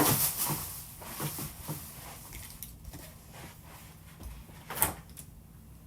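Rustling of a bag and light knocks of items being handled and dropped into it. The rustling is loudest at the start and fades, with one sharp click a little before the end.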